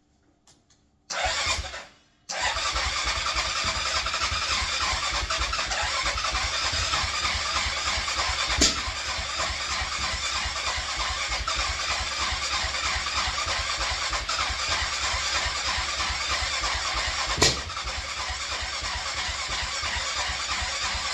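Yamaha Grizzly 660 ATV's electric starter cranking its single-cylinder engine: a short crank about a second in, then long continuous cranking without the engine catching, broken twice by a sharp backfire about nine seconds apart. It is a crank-no-start despite spark, fuel and a cleaned carburettor; the owner takes the backfiring for a sign of valve timing or valve adjustment being off.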